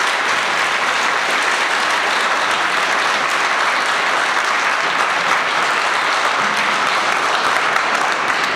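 Seated audience applauding steadily, dense clapping after a speech ends.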